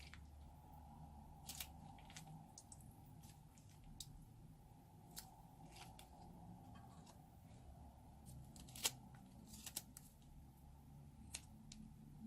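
Faint, scattered sticky clicks and crackles of slime being squeezed and handled, with one sharper click about nine seconds in.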